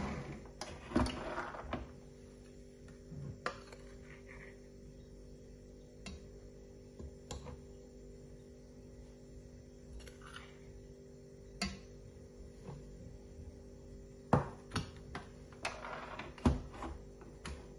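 Stand mixer stopping in the first second, then a metal spoon scraping and clinking against the stainless steel mixing bowl and beater. Scattered sharp knocks, the loudest near the end as the mixer head is tilted up.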